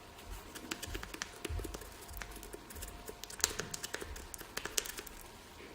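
Irregular light clicks and taps of small metal lathe-apron parts being handled and fitted, with a few soft low bumps, the sharpest clicks about three and a half and near five seconds in.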